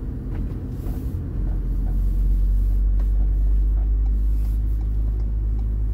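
Camping-car engine and road rumble heard from inside the cab while driving. The low rumble grows louder about a second and a half in, then holds steady.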